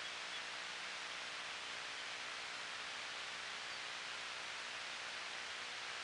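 Steady hiss from a trail camera's microphone, with no distinct sounds over it.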